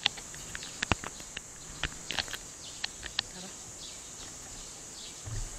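Steady high-pitched insect chirring, with scattered sharp clicks and taps from the action camera being handled.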